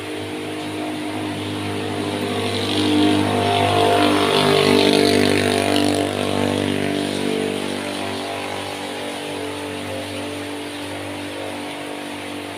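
Rainwater pouring in a stream from above and splashing into a puddle, with rain falling on the water around it. A motor vehicle engine hums under it, growing louder to a peak about five seconds in, then fading away.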